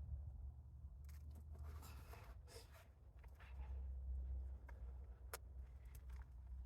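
Faint scratching and rustling of hands digging through soil in a sweet potato grow bag, in short scattered scrapes, over a steady low rumble.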